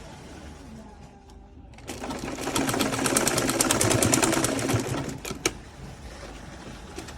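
Sewing machine stitching in one burst: it comes up to a fast, even needle rhythm about two seconds in and stops about five seconds in. A single sharp click follows shortly after.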